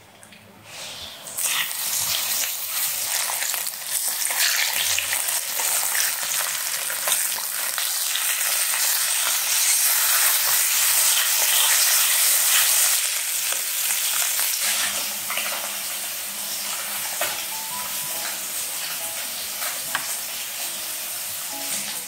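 Fish fillets sizzling and spitting in hot oil in a non-stick frying pan, starting about a second in; the sizzle is loudest in the middle and eases off in the later part.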